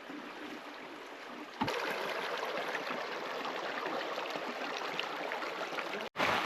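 Creek water running steadily, louder from about a second and a half in, then cutting off suddenly near the end.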